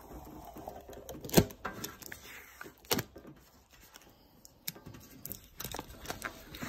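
Protective plastic film being peeled off a laser-cut stainless steel sheet: irregular crinkling and crackling with scattered sharp snaps, the loudest about a second and a half in.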